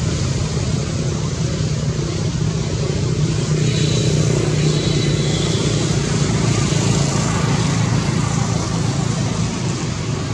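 Steady motor hum with a rushing noise over it, level throughout; faint high chirps come in briefly about four seconds in.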